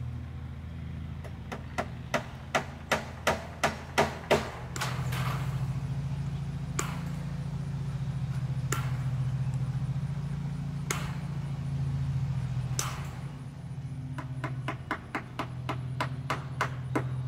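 Hammer blows on wooden fence posts as wire fencing is fastened to them: a run of about eight strikes, about three a second, then single knocks every couple of seconds and a quicker series of lighter taps near the end. A steady low hum runs underneath.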